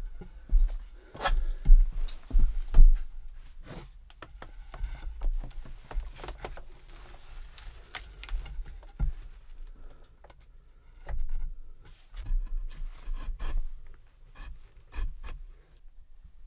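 Handling noises: scattered clicks, knocks, rubbing and scraping, with several dull thumps in the first few seconds and again after about eleven seconds.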